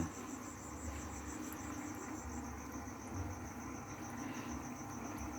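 Night insects, crickets, trilling in a rapid pulsing high chirr that fades about two and a half seconds in, over a faint low background hum.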